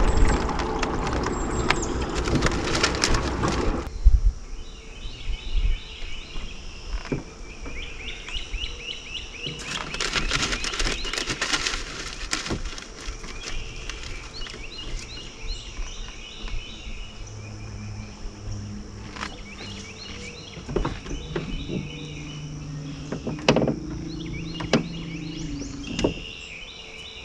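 Birds singing, with many short chirping phrases repeated over and over, along with scattered sharp clicks and knocks from the boat. A loud rushing of water and wind fills the first four seconds and then cuts off suddenly.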